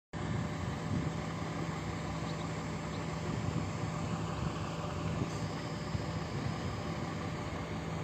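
A vehicle engine idling nearby: a steady, even hum with no change in speed.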